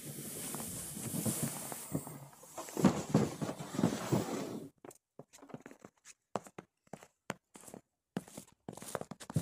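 Irregular crunching steps and knocks, over a steady hiss in the first half; from about halfway the hiss drops away and the crunches come singly with short gaps between them.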